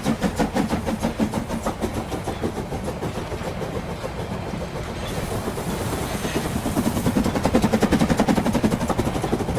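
Battery-powered Trackmaster toy train running along plastic track with a rapid, even clatter, growing louder towards the end as it comes closer.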